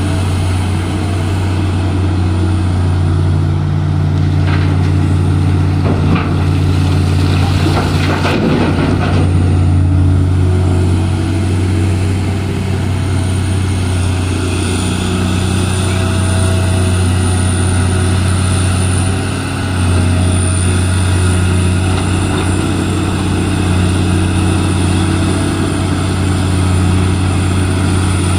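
Heavy diesel mining machinery, a hydraulic excavator and dump truck, running steadily with a deep engine drone. There is a rougher stretch of rattling noise from about four to ten seconds in.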